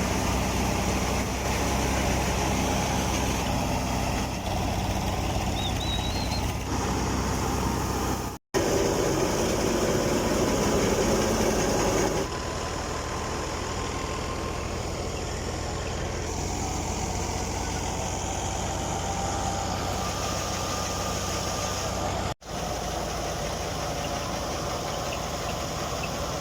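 Tractor engine running steadily at a constant speed. The sound cuts out completely twice for an instant, about a third of the way in and near the end, and there is a louder, rougher stretch of a few seconds just after the first cutout.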